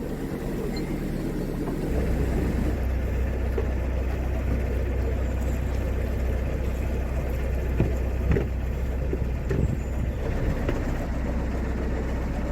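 Narrowboat diesel engine running with a steady low drone, opening up to a louder, deeper level about two seconds in and holding there as the boat gets under way. A few faint knocks near the middle.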